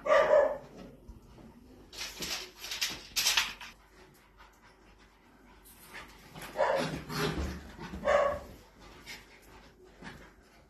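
Catalan sheepdog puppies at play, giving short barks at the start and again about eight seconds in, with noisy scuffles of rough-and-tumble between.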